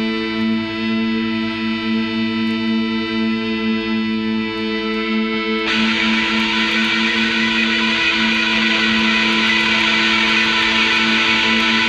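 Industrial noise-rock music: a sustained, pulsing drone that is joined about halfway through by a louder wash of distorted noise.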